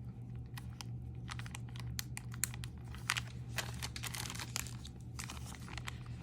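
Crinkling and rustling of packaging with small irregular clicks as jewelry pieces are handled and unwrapped, over a steady low hum.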